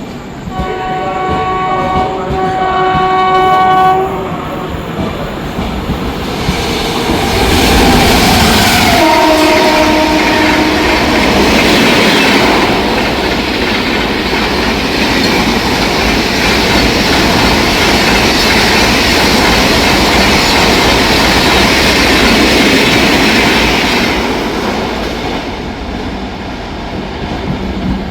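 Locomotive horn sounding in two blasts, then a train passing at speed with loud wheel-on-rail noise. Partway through, a horn sounds again and falls in pitch as it goes by. The running noise eases off near the end.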